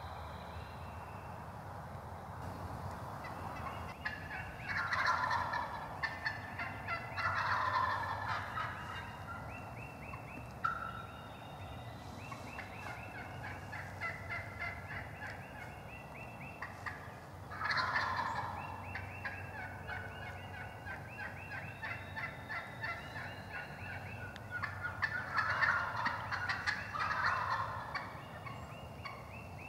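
Wild turkey gobblers gobbling several times, loudest about 5, 8, 18 and 26 seconds in. Between the gobbles, long runs of quick, higher-pitched turkey yelps.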